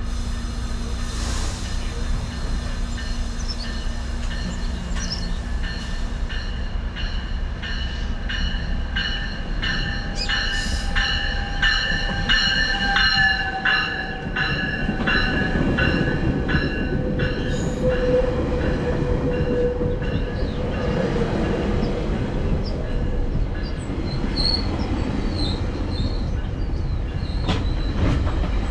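GO Transit commuter train running on the rails: a steady low rumble with high wheel squeal and rhythmic clicking, strongest in the first half. Partway through, a lower whine falls slowly in pitch.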